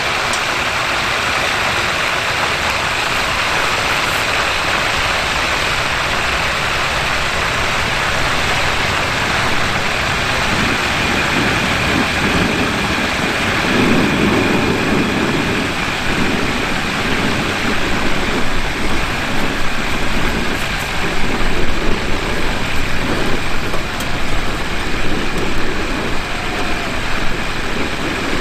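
Propane turkey fryer running: a steady rushing roar from the burner with the hot pot hissing. From about twelve seconds in, uneven low rumbling joins it.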